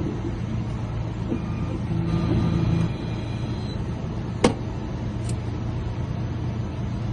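Key-cutting machine running with a steady motor hum as the blank for a 2006 Chevy Express ignition key is cut, its cutter not actually taking any metal off. A higher whine comes in briefly about two seconds in, and a sharp click sounds at about four and a half seconds.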